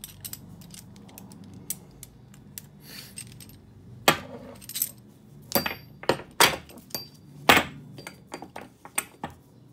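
Metal clinks and knocks from a Kawasaki 250TR rear shock absorber's steel coil spring and shock body as the spring is freed from its rope compressor and handled, a string of sharp strikes, each with a brief ring, the loudest about four seconds in and again near seven and a half seconds.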